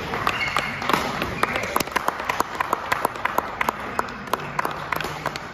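A few people clapping with quick, irregular sharp claps, with voices in the background.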